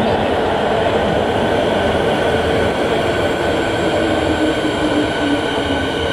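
Metro train pulling into the station on the opposite track: a steady rolling rumble with high whining tones over it, and a lower tone that drops slightly in pitch about midway as the train slows.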